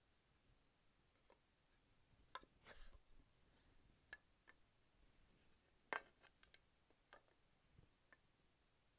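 Faint taps and clicks of flat puzzle pieces being turned over and set down on a rug, scattered through the quiet, with a short brushing sound about three seconds in and the loudest click about six seconds in.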